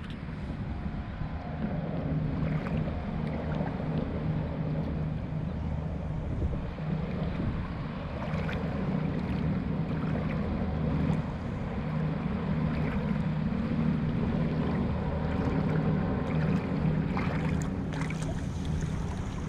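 Wind buffeting the microphone over choppy water, with a steady low hum underneath and occasional small knocks.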